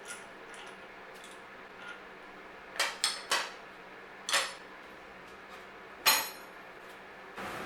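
Metal parts and tools clinking against each other during a brake job, about half a dozen sharp clinks, a few of them ringing briefly.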